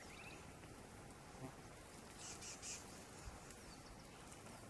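Quiet open-air ambience with a brief run of faint, high chirps, about four quick pulses a little past halfway.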